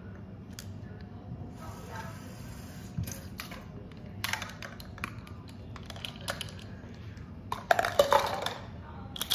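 Kitchen handling noise: scattered knocks and clinks of utensils and containers being moved on a counter, with a louder burst of clattering about eight seconds in.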